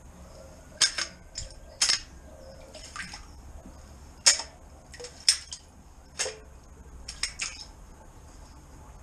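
Water splashing and slapping in a flooded drain chamber as a drain-cleaning lance is worked in it: about a dozen short, sharp splashes at irregular intervals over a steady faint hiss.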